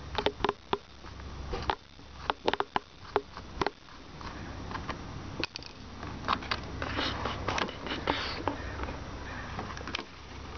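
A Phillips screwdriver backing out a screw from a plastic turn-signal housing: a run of sharp, irregular clicks for the first few seconds, then scraping and rustling as the part is handled.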